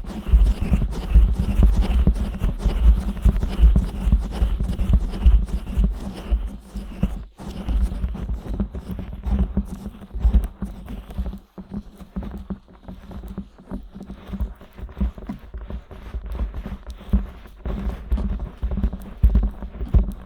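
Fingers rubbing, pressing and scratching the silicone ears of a 3Dio binaural microphone: dense, irregular muffled rubbing and soft thumps with a deep rumble, pausing briefly about seven and eleven seconds in.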